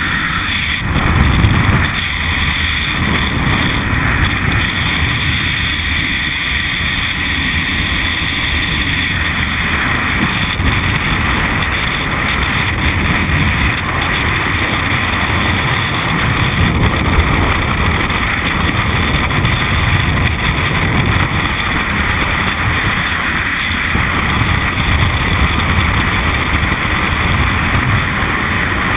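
Steady rush of freefall wind buffeting a skydiver's helmet-mounted camera microphone.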